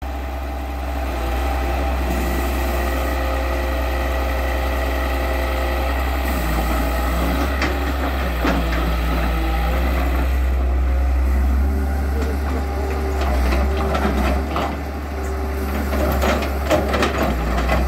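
Diesel engine of a hydraulic excavator running under load while digging, its pitch shifting a few times as the work changes, with several sharp knocks in the second half.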